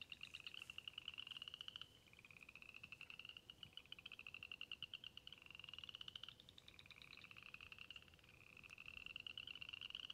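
Frogs calling in a faint chorus: high, rapid pulsed trills, each a second or two long and rising slightly in pitch, following one another without a break.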